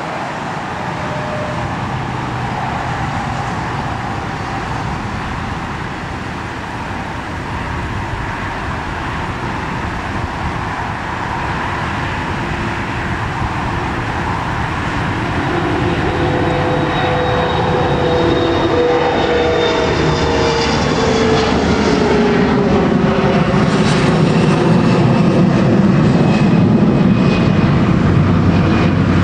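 Delta CRJ900 regional jet's two rear-mounted GE CF34 turbofan engines at takeoff power as it climbs out overhead. The jet noise builds steadily louder, the engine whine glides down in pitch as the aircraft passes, and a deep rumble grows near the end.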